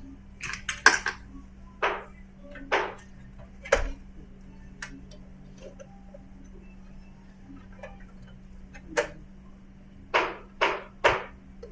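Scattered short clicks and light knocks of tools and small parts being handled on a repair bench, several close together about a second in and three in quick succession near the end, over a faint steady hum.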